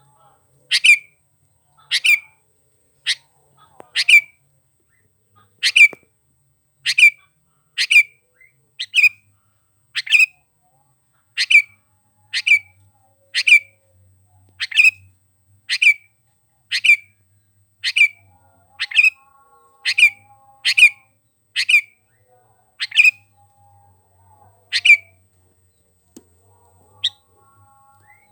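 A sooty-headed bulbul gives a short, sharp call about once a second, over and over, with a pause of a few seconds near the end.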